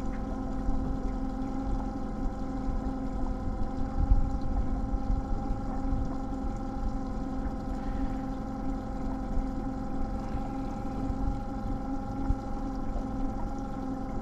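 Boat motor running steadily, a constant hum over a low rumble.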